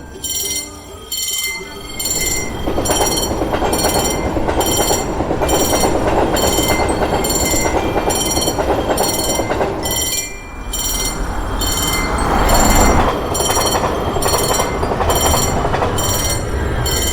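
Railroad crossing bell ringing at about two strikes a second while a train passes over the crossing, its wheels on the rails making a steady rumbling noise. The train noise dips briefly about ten seconds in, then swells again.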